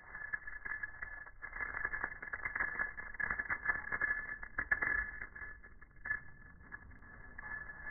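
Small crushed-glass pieces clicking and clinking irregularly as a hand rakes through them, heard muffled as if through a radio, with a steady high tone underneath. The clinking is busiest in the middle stretch.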